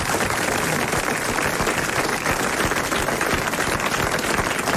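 Studio audience applauding: a dense, steady round of clapping.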